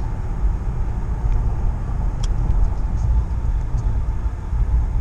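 Rebuilt Ford 4.6-litre V8 and road noise heard from inside a Grand Marquis cabin while cruising: a steady low rumble, with a light click about two seconds in.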